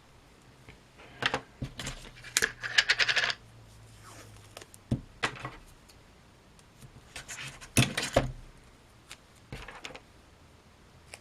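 Hand work on wiring: a scatter of sharp clicks, snips and crinkles from wires, wire cutters and electrical tape being handled, with a quick rattling run of ticks about three seconds in and louder clicks around five and eight seconds in.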